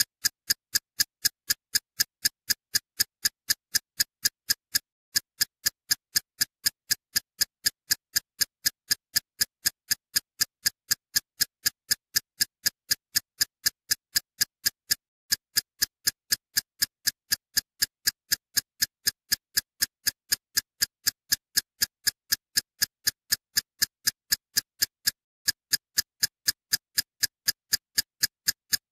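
Background music made of a steady, sharp electronic ticking beat, about three clicks a second, with a brief skipped beat about every ten seconds.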